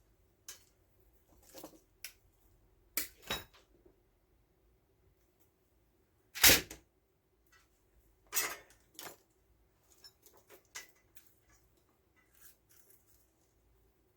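Irregular clicks and knocks of small tools and electrical parts being handled during wiring work, the loudest about six and a half seconds in, over a faint steady hum.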